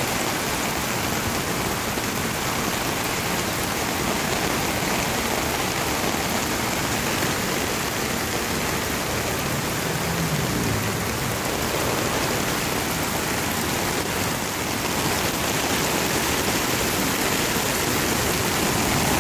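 Steady rush of rain falling and floodwater flowing across a street.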